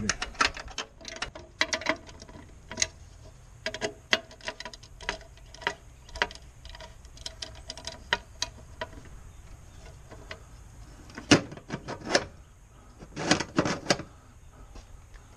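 Irregular metallic clicks and taps of hand tools on bolts, some ringing off a metal box. There is a louder knock about eleven seconds in and a quick cluster of knocks near the end.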